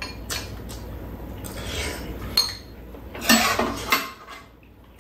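Metal spoons and chopsticks clinking and scraping against bowls and a frying pan during a meal: scattered sharp clinks, with a busier cluster of taps and scrapes about three and a half seconds in.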